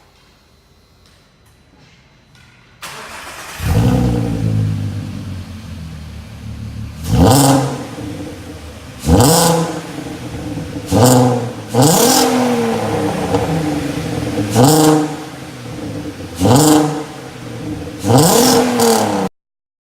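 Volkswagen Golf V R32's 3.2-litre VR6 engine, on a Milltek non-resonated exhaust, starting up about three and a half seconds in and then idling. It is blipped about seven times, each rev rising sharply and dropping back to idle, before the sound cuts off suddenly near the end.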